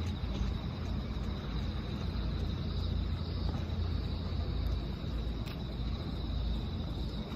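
Steady outdoor ambience: a continuous low rumble with a thin, steady high-pitched trill above it.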